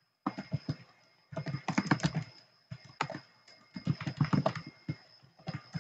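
Computer keyboard being typed on: quick runs of keystrokes in four or five short bursts with brief pauses between them.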